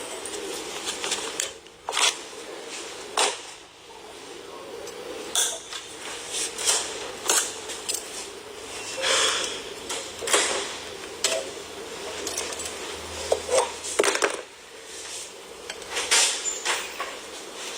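Safety wire pliers and steel safety wire being worked: irregular metallic clicks and clinks, a few of them sharper, over a steady background hum.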